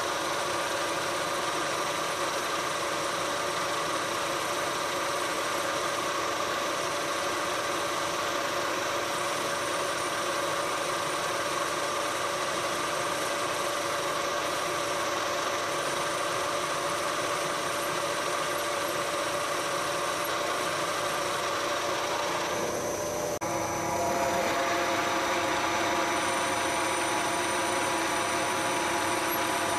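Metal lathe running while a boring bar cuts the inside of a welded-seam tube housing: a steady machine hum with several held tones. It dips briefly about three-quarters of the way through and comes back slightly louder.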